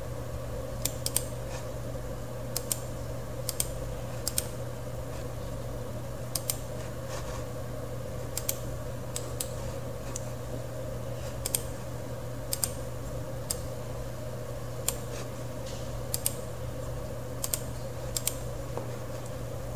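Irregular clicks of a computer mouse and keyboard, about one a second and sometimes in quick pairs, over a steady low electrical hum.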